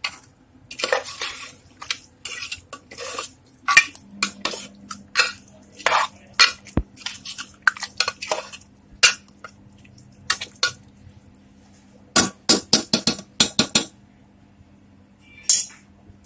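Spoon stirring keema and water in a pressure cooker, scraping and clinking against the pot, with a quick run of sharp knocks on the pot near the end.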